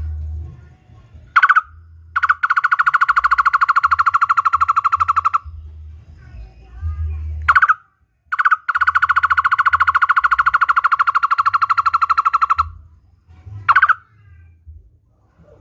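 A barbet calling: two long trills of rapid, evenly repeated notes at one steady pitch, each lasting about three to four seconds. Short, sharp single notes come before, between and after the trills.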